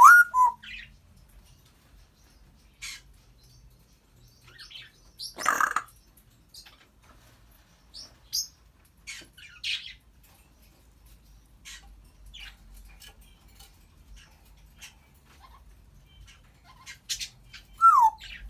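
Congo African grey parrot making scattered clicks and short chirps. A short rising whistle opens it, a louder harsh squawk comes about five and a half seconds in, and a falling whistle comes near the end.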